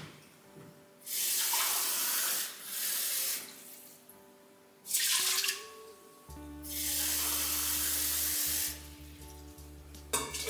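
Water running from a kitchen tap and being poured into a pot in four short spells, as two glasses of water are measured in. A low steady hum comes on about six seconds in.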